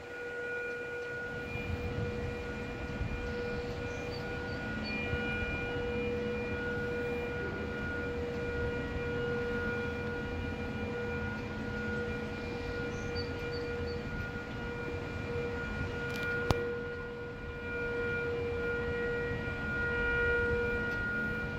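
Model 2 mechanical outdoor warning siren sounding one steady tone for its monthly first-Tuesday test, swelling and fading slightly. A single sharp click about three-quarters of the way through.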